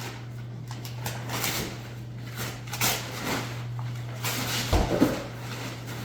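Rustling and handling of a present as it is unwrapped, in short scraps of sound, with a louder bump just before five seconds. A steady low hum runs underneath.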